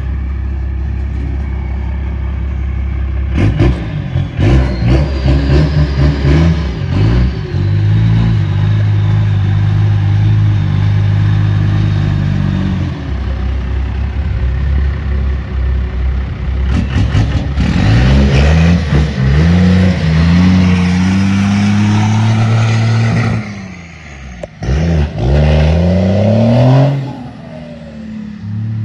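Dodge Ram's Cummins turbo-diesel inline-six, exhausting through a galvanized trash can rigged as an exhaust tip, idles and then is revved and driven hard. The engine note climbs and holds high several times, dropping sharply twice, and settles back to a lower, steady note near the end.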